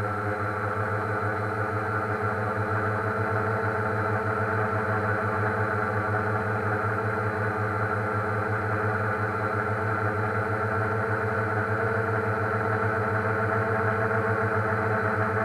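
DJI Phantom quadcopter's electric motors and propellers humming steadily, heard from the camera on board as the drone climbs.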